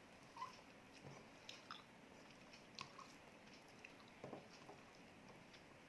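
Faint, scattered clicks and wet smacks of someone eating prawn curry: chewing and mouth sounds, with a slightly louder smack a little past four seconds in.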